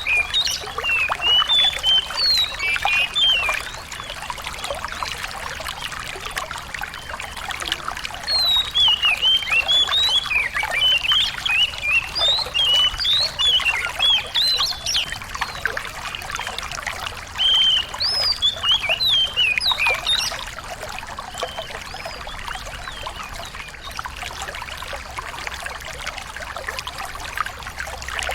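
Small songbird singing in clusters of rapid, sharp, high chirps and trills over steady trickling water. The song pauses a few seconds in and thins to a few scattered notes for the last third.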